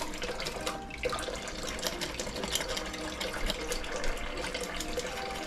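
Kitchen tap water running into a sink, with many quick scraping clicks as the last scales are scraped off a fish.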